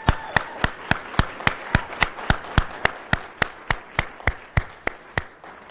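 Group applause, with one person's close, regular claps at about three or four a second standing out over it. The close claps stop shortly before the end and the applause fades.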